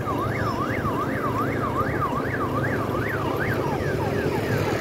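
Electronic siren wailing up and down quickly, about two to three rises a second, switching about three and a half seconds in to quick falling sweeps, over a steady low hum.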